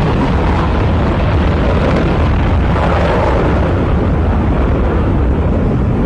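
F-22 Raptor's twin Pratt & Whitney F119 afterburning turbofans at full power as the fighter takes off and climbs steeply: a loud, steady jet rumble.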